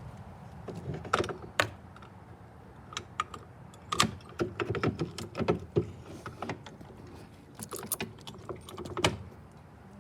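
Irregular clicking and clattering of small hard objects, with a few sharp clicks about a second in, a busy cluster between four and six seconds in, and more near the end.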